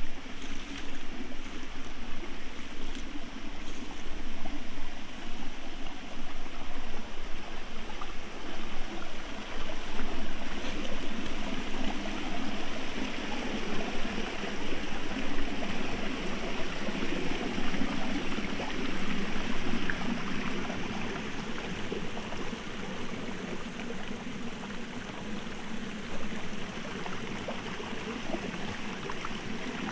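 Shallow rocky forest stream trickling and splashing over stones and small cascades, a steady rush of water that grows a little softer in the last third.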